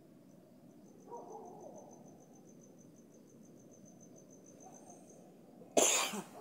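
A cricket chirping in a rapid, even, high-pitched pulse. Near the end a sudden loud burst of noise lasts about half a second.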